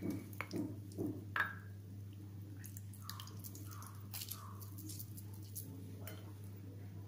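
Faint wet squishing and dripping as soaked kokum fruits are squeezed by hand and lifted out of a glass bowl of their red soaking water, with a few soft clicks near the start and drips falling back into the bowl.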